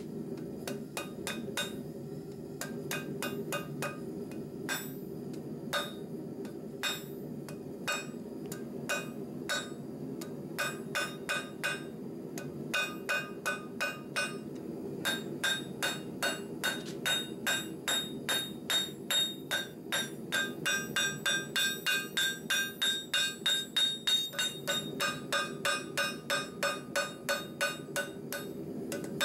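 Hand hammer striking red-hot 3/8-inch steel rebar on a steel block anvil, drawing out a point. The ringing blows come irregularly at first, then settle into a steady rhythm of about two a second through the second half. A steady low hum runs underneath.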